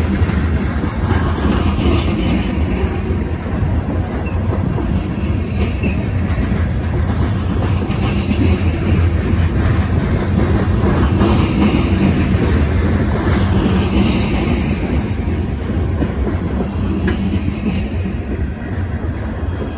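Covered hopper cars of a BNSF grain train rolling past: a steady rumble and clatter of steel wheels on the rails.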